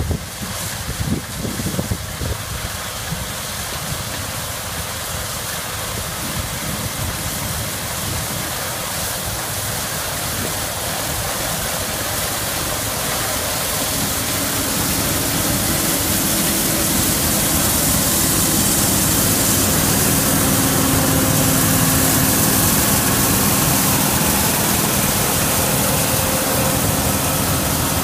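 1982 White 9700 combine running as it harvests peas, its engine and threshing machinery a steady drone. It grows louder as the machine comes close and passes by, with steady engine tones coming through about halfway in.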